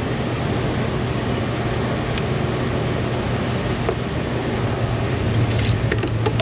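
Steady mechanical hum with a constant whooshing noise, like a running fan or air unit, and a few light clicks near the end.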